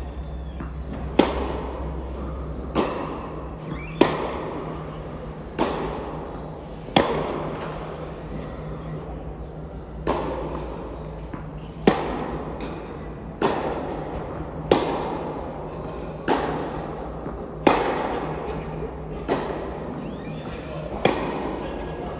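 Tennis rally: rackets striking a tennis ball back and forth, a sharp pop roughly every one and a half seconds, ringing on in the echoing indoor hall over a steady low hum.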